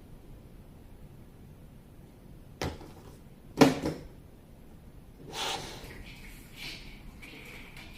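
Hard plastic pieces being handled: a sharp knock, then a louder double knock a second later, followed by a short scraping rustle and a fainter one.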